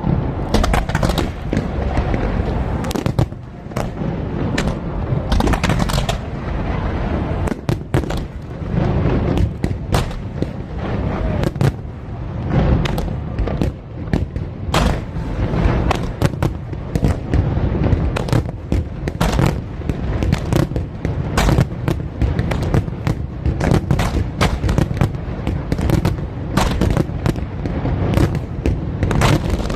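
Fireworks display: a dense, continuous barrage of sharp bangs and crackles, several a second, over a steady low rumble of booming bursts.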